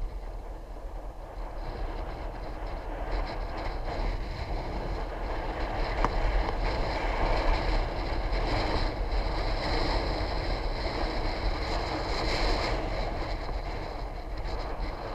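Steady road rumble and wind rush on the move, swelling for several seconds in the middle before easing off.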